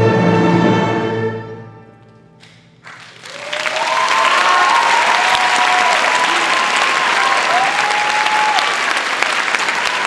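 A Chinese orchestra's final held chord dies away over about two seconds. After a brief hush, an audience bursts into applause, with long gliding cheers rising above it.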